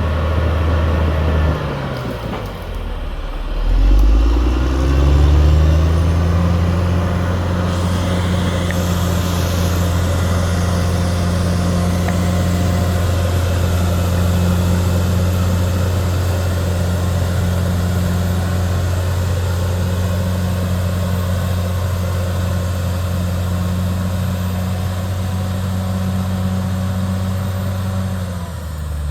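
Caterpillar D6R XL bulldozer's diesel engine running at high revs. About two seconds in the engine speed drops sharply, then climbs back up over the next few seconds and holds steady, dropping again just before the end.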